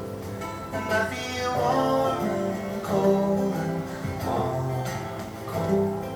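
Acoustic guitar playing an instrumental passage of a song, strummed and plucked chords, with no singing.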